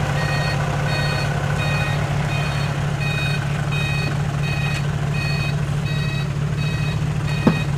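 A vehicle's engine running steadily under a regular electronic warning beep, about three beeps every two seconds, like a reversing beeper. A brief falling squeak comes near the end.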